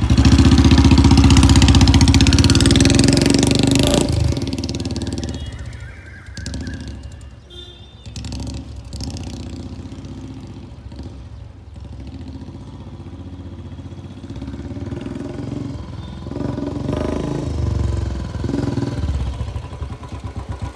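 Royal Enfield Classic 350's 346cc single-cylinder engine revving loudly as the bike pulls away, then fading as it rides off into the distance. It grows louder again as the bike rides back toward the listener, settling into an even, slow thump near the end.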